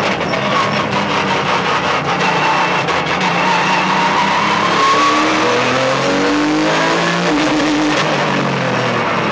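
Porsche 911 GT3 Cup race car's flat-six engine heard from inside the cabin, its pitch rising steadily as it accelerates through the middle, then dropping about two-thirds of the way through.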